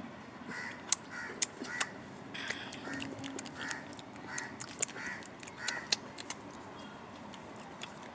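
Calf suckling at a cow's udder: wet sucking and smacking that repeat roughly every half-second, with sharp clicks in between.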